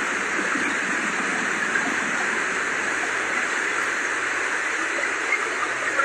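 River in flood, its fast turbulent water rushing in a steady, even rush.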